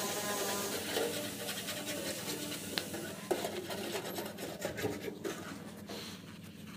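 Long insulated air-conditioner refrigerant pipe scraping and rubbing on concrete pavement as it is handled and pressed straight by hand, with irregular scratches and small knocks.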